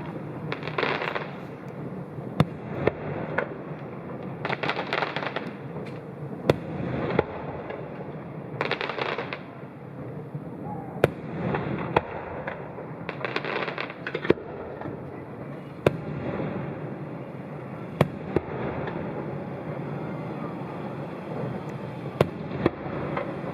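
Fireworks display: sharp bangs of bursting shells at irregular intervals, a few seconds apart, with several hissing spells of about a second each.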